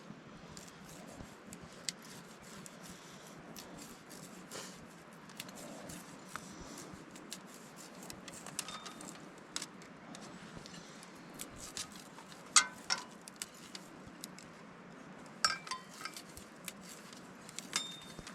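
Scattered clinks and taps of metal utensils against pots or dishes, some ringing briefly, with the loudest clinks coming about twelve to eighteen seconds in, over a steady low background noise.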